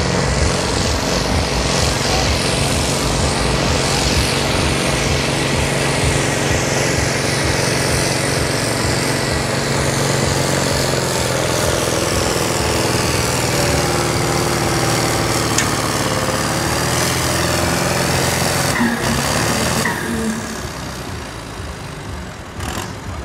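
Farm tractor engine running loud and hard under full load during a pull. Its note shifts partway through, and it drops off sharply about twenty seconds in.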